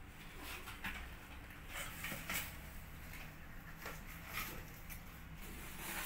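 Kittens' claws scratching and scrabbling on cardboard as they climb the sides of a box, in short scattered scrapes.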